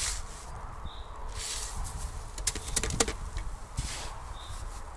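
Crunching and rustling of someone moving on snow and dry leaves while handling a small camp stove, with a few sharp clicks and knocks near the middle. A bird gives a short high call twice.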